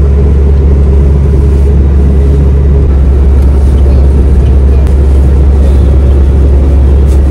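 Land Rover driving along a paved road, heard from inside the cabin: a loud, steady low drone of engine and road noise.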